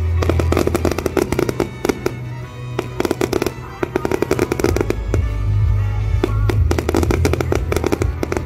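Fireworks display: many rapid crackling, popping bursts, over music with a steady low bass.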